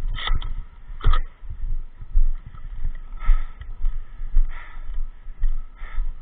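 Rhythmic footsteps, about two a second, with knocks and rustles from a person moving with gear. Five short, brighter scuffs come at intervals of one to one and a half seconds.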